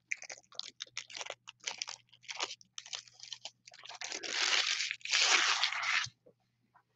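Foil wrapper of a 2020 Panini Donruss Optic card pack torn open and crinkled as the cards are pulled out: a run of short crackles, with two longer, louder stretches of crinkling about four and five seconds in, stopping about six seconds in.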